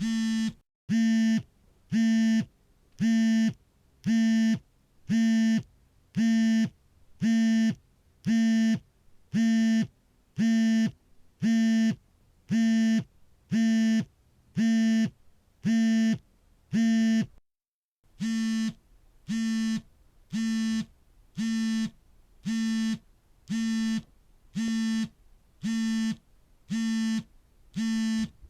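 Smartphone vibrating for an incoming call: repeated buzzes of about half a second, roughly one a second, each a steady low buzz with a rattling edge. The pattern breaks off briefly about two-thirds of the way through, then resumes at the same pace.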